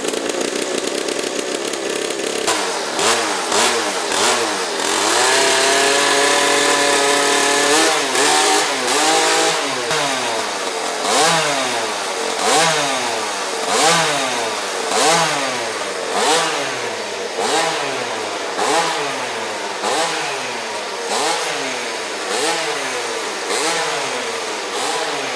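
Pocket bike's small engine revving hard. It holds a high rev for a few seconds, then is blipped up and down over and over, about once every second and a quarter.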